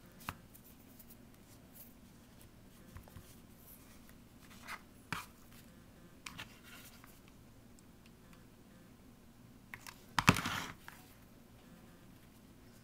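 Faint handling noises of fingers working lace trim onto a fabric-covered bottle-cap pin cushion: scattered light taps, scratches and rustles, with a short, louder burst of clicks and rustling about ten seconds in.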